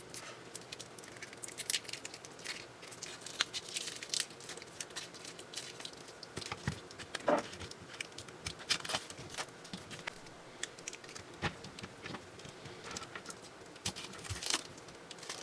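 Scattered light crackles and small clicks of a taped wire harness being handled and its tape picked at and peeled, with some crinkling.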